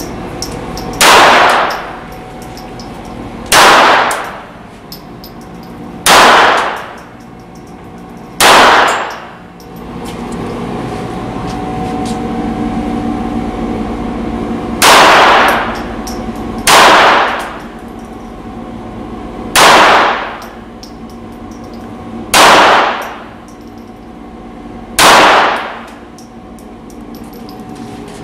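Beretta 87 Target .22 LR semi-automatic pistol fired one shot at a time in an indoor range: nine sharp reports, mostly two to three seconds apart, with a pause of about six seconds after the fourth. Each shot rings briefly off the range walls over a steady background hum.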